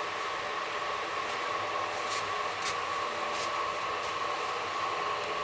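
Steady running noise inside an air-conditioned train coach: an even hiss from the air conditioning and the moving train, with a constant mid-pitched tone and a few faint ticks.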